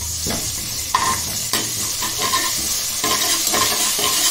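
Whole spices in hot oil sizzling in an aluminium pressure cooker pan, the tempering for a kootu, while a steel slotted spatula stirs them, scraping and tapping the pan bottom. The scrapes start about a second in and come more often in the second half.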